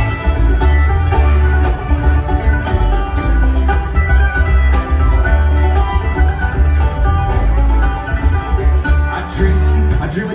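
Live bluegrass band playing an instrumental passage: banjo and mandolin picking over a heavy upright bass.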